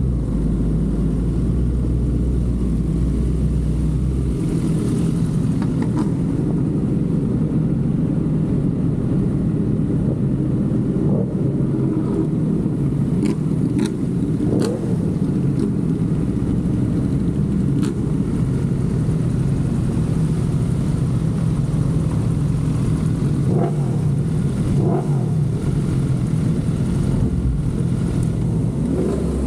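Sport-bike engines idling steadily at a standstill, led by the Kawasaki ZX-6R's inline-four under the camera, with a few light clicks near the middle.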